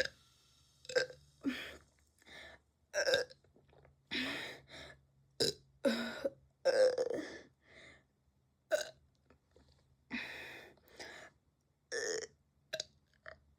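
A person burping over and over, a run of more than a dozen burps with short gaps between them, some brief and some drawn out. The louder, longer ones come about three, four, six to seven and twelve seconds in.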